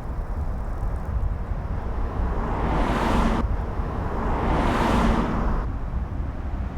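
Car on the road: a steady low rumble of road noise, with two swells of tyre and wind hiss that build up and cut off abruptly, about three and five and a half seconds in.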